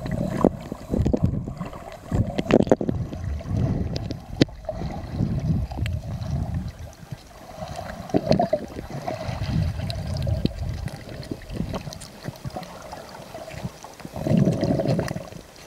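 Muffled underwater sound from a camera held below the surface: water rumbling and sloshing against it in irregular surges, with scattered sharp clicks and knocks.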